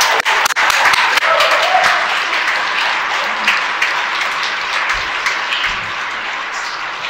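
A congregation applauding a baptism by immersion: a dense, steady crowd clapping.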